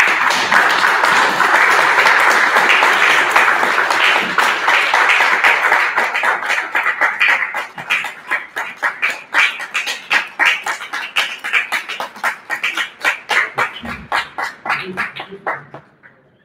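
Audience applauding: dense clapping at first, thinning out over the second half into scattered separate claps that die away shortly before the end.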